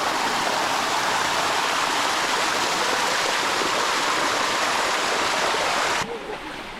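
Water of the Bua Tong sticky waterfall rushing over the rock close by, a steady loud rush that drops off suddenly about six seconds in to a fainter one.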